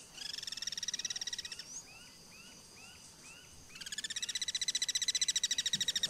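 Rapid, high-pitched pulsed trills from a calling animal, twice, with a run of short rising chirps, about three a second, in the gap between them.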